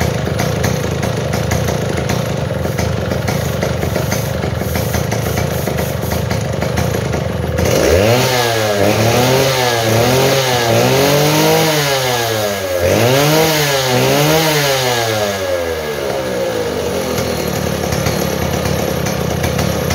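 Stihl 070 two-stroke chainsaw idling, then revved in quick throttle blips, about three and then two more, each rising and falling in pitch, before settling back to idle. This is a test run after a repair for loss of power and backfiring, and the mechanic calls it okay.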